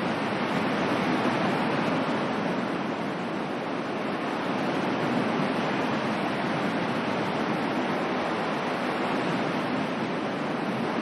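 Ocean surf used as sleep white noise: a steady, even wash of waves with only slight slow rises and falls in loudness.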